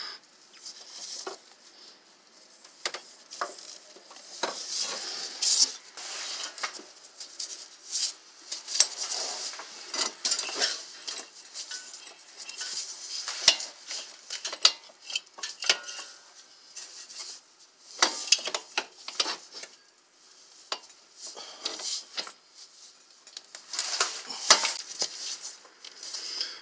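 Gloved hands fitting a new CV axle's inner joint into its housing: irregular light metallic clicks, scrapes and rubbing, with short quieter pauses.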